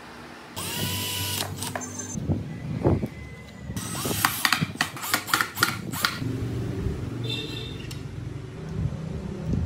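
Wooden model parts and small metal hardware being handled and fitted together by hand: a run of sharp clicks and knocks, with a couple of brief metallic rattles that ring for a moment.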